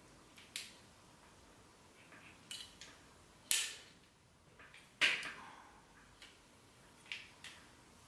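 Sharp clicks and clacks from a Babyliss Pro curling iron being handled, its spring clamp opening and snapping shut on sections of hair. There are a handful of clicks, and the two loudest come about a second and a half apart midway through.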